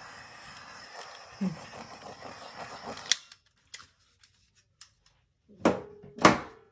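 Small handheld torch hissing steadily as it is passed over the wet acrylic pour, shut off with a sharp click about three seconds in. Two loud, sharp clicks about half a second apart near the end.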